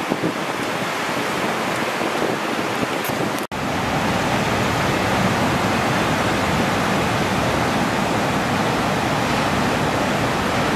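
Breaking ocean surf and wind buffeting the microphone, a steady rush of noise. The sound drops out for a split second about three and a half seconds in, then carries on slightly louder.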